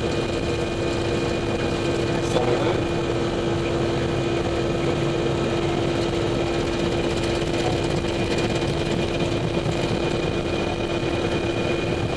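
Steady cockpit hum of an Airbus A319 on the runway, its engines running at low power with a constant mid-pitched tone and no spool-up, plus a brief click about two seconds in.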